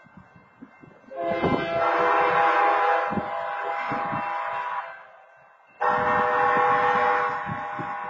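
Wayside horn at a railroad grade crossing sounding two long horn-chord blasts, each about three seconds, with a one-second gap: the automated crossing warning that a train is approaching.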